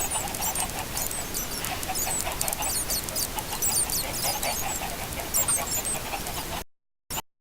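Chickens calling together: a busy mix of clucks and many short, high chirps. The sound cuts out suddenly for about half a second near the end.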